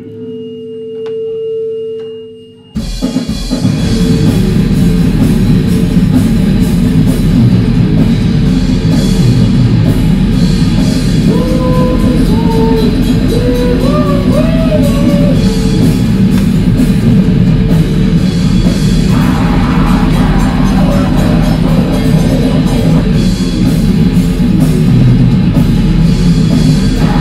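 Grindcore band playing live at full volume. A single held tone rings for the first couple of seconds, then the full band crashes in with drums and distorted guitars in a dense, unbroken wall of sound, with a few bending high notes about halfway through.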